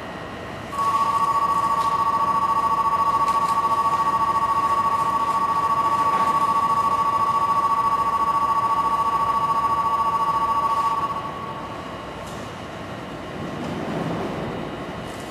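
Station platform departure signal: a steady two-tone electronic ring with a fast flutter, starting about a second in and stopping abruptly after roughly ten seconds, over the steady hum of an underground station.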